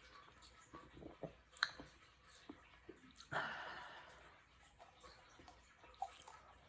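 Faint mouth sounds from eating a frozen ice pop: small wet clicks and chewing noises, with one sharp breath about three seconds in that fades over about a second.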